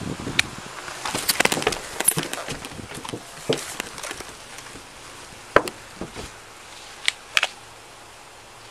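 Knocks, scrapes and the rattle of gear as a deputy climbs onto a patrol car, hands and boots meeting its body: a quick flurry in the first few seconds, then a few sharp single knocks later on.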